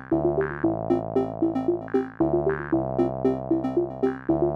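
Background music: a bouncy synthesizer tune of quick repeated notes over held chords that change every second or two.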